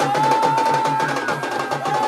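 Khalu baja band playing: a shehnai-like reed pipe holds a long melody note that slides up into it, over fast, even drumming.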